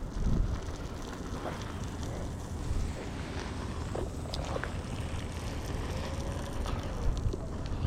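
Fireworks booming in the distance, one low bang just after the start and lighter pops later, over a steady low rumble of wind on the microphone.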